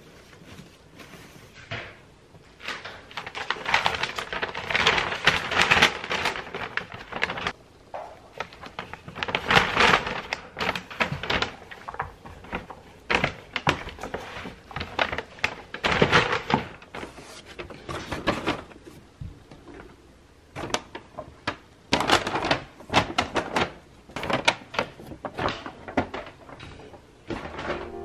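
Rustling and knocking of things being handled by hand: a fabric storage box being folded and children's shoes being put into a paper shopping bag. It comes in irregular spells of rustling with sharp knocks, with short quiet gaps between.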